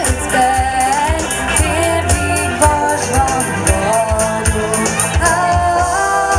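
Live band: several women's voices singing a melody in harmony over electric guitars, keyboard and a steady drum beat with regular cymbal strokes.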